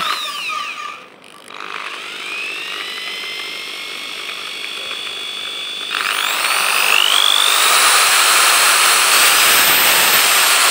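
Crown CT10128 600 W corded impact drill running free with an empty chuck under its variable-speed trigger. Its whine dips briefly about a second in and then runs steady at low speed. About six seconds in it speeds up with a rising whine and runs louder and steady at higher speed.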